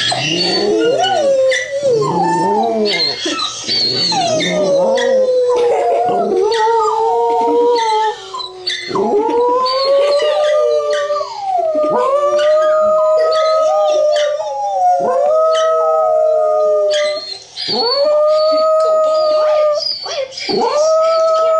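Dachshund howling: wavering howls at first, then a string of long howls, each held at a steady pitch for two to three seconds with a short break between them.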